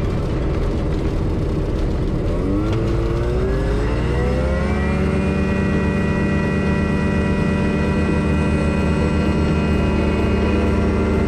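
RANS S-14 light aircraft's engine and propeller at low power with a rough rolling rumble, then the throttle opens about two and a half seconds in: the engine note rises over about two seconds and holds steady at full power for the takeoff of a touch-and-go.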